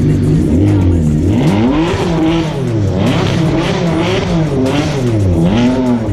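Ferrari 599's V12 engine revved repeatedly, roughly once a second: from idle about half a second in, its pitch climbs and falls back with each blip of the throttle.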